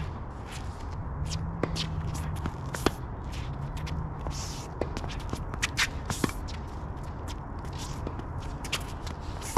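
Tennis shoes stepping and scuffing on a hard court, with many short scrapes and a few sharp knocks about three seconds in and again around six seconds.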